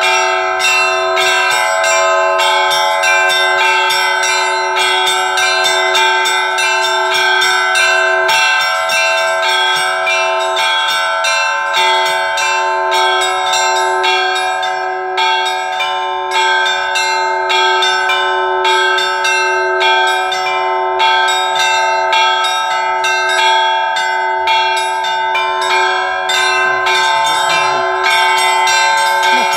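Russian church bells rung in a continuous peal (zvon): rapid strikes several times a second on the smaller bells over the steady ringing of larger bells.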